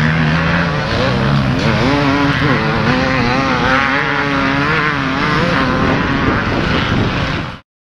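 Several dirt bike and quad engines running and revving across the field, their pitches wavering up and down as they ride. The sound cuts off abruptly near the end.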